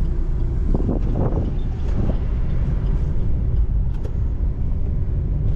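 Car being driven: a steady low rumble of engine and road noise, with a few brief louder sounds about a second in.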